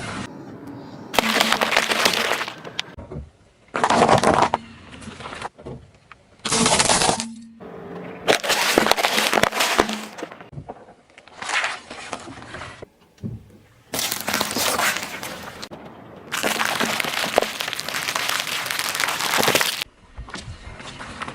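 A run of separate crushing events: things cracking, crunching and breaking under a car's tyres, about eight bursts of crackling a second or so apart. The longest and loudest are near the end.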